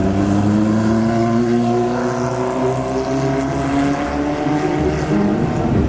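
Vintage motorcycle engine pulling away, its note rising gradually and then holding steady.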